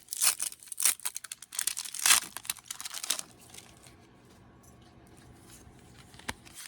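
Japanese Pokémon 151 booster pack wrapper being torn and crinkled, a dense crackling rustle for about three seconds that then drops to faint handling, with one sharp click near the end.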